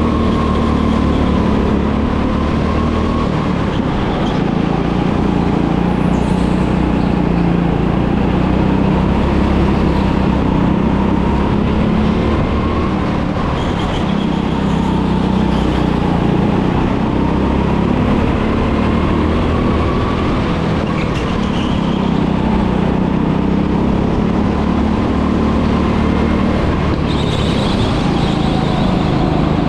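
Go-kart engine running continuously, its pitch rising and falling gently as the kart drives.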